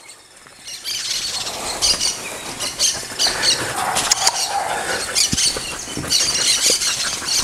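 Birds chirping and twittering in quick, repeated short calls, starting about a second in.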